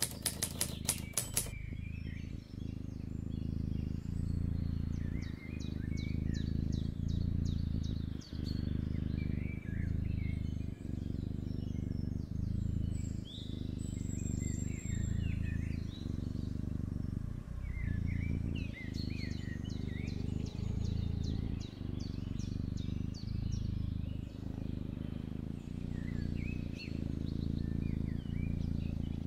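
A sleeping kitten purring steadily: a low rumble with a brief dip at each breath, about every one and a half seconds. A quick run of typewriter-style clicks plays at the start, and birds chirp faintly in the background.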